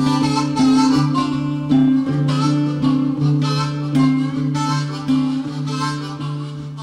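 Background music: a harmonica melody over guitar, slowly fading out.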